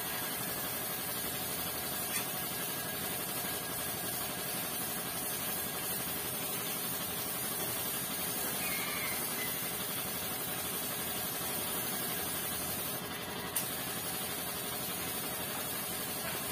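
Steady, even hiss with no rhythm or pitch, broken by two short clicks, about two seconds in and near the end.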